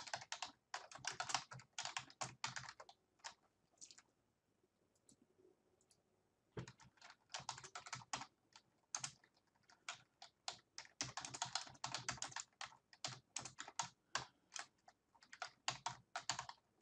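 Typing on a computer keyboard: fast runs of keystrokes that pause for about three seconds a few seconds in, then pick up again and keep going.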